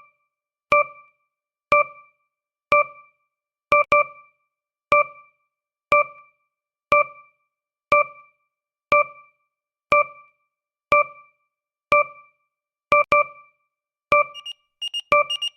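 Countdown timer sound effect: one short, bright electronic beep each second, with a fast decay. About 14 seconds in, a faster alarm of rapid repeated beeps starts, signalling that the countdown is running out.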